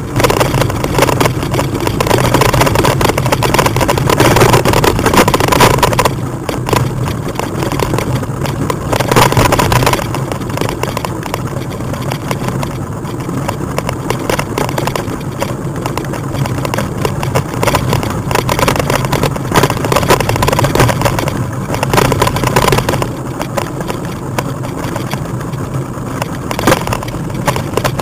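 Wind buffeting the microphone of a moving bike, with rolling road noise and a steady low hum underneath, swelling and easing in gusts.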